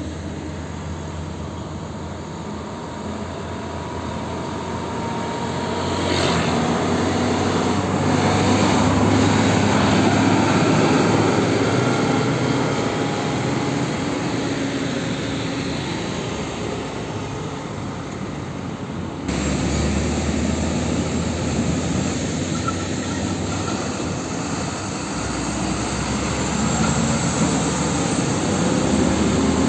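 Heavy diesel trucks passing along a road with traffic noise. A truck's engine grows louder as it approaches and goes by, peaking about a third of the way in. After an abrupt cut, another truck engine swells again as it passes near the end.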